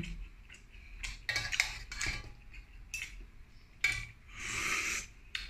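Metal spoon and ladle clinking against a large enamel wok and the shellfish in it, in several short sharp clinks. About four seconds in comes a longer, louder slurp as broth is sipped from a spoon.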